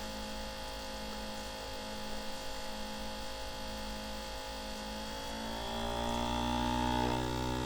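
A steady hum of several tones, which rises in pitch and grows a little louder about five and a half seconds in.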